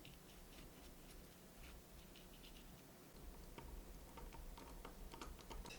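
Near silence with faint, scattered small clicks and taps from handling a small smartwatch, a few more of them in the second half.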